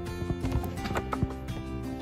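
Background music with steady held notes, crossed by a handful of sharp clicks or knocks in the first second and a half.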